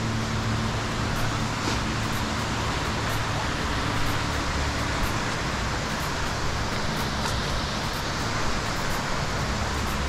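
Steady rushing noise of nearby falling water, with no change in level.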